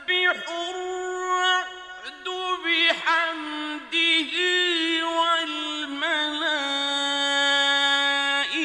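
A man reciting the Quran in the melodic mujawwad style, drawing out long held notes with sliding, ornamented turns. Brief breaks come between phrases, and a long steady note is held in the second half.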